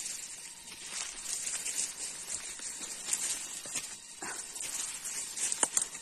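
Rustling of leaves and undergrowth brushing past, with a few sharp crackles in the second half, over a steady high hiss.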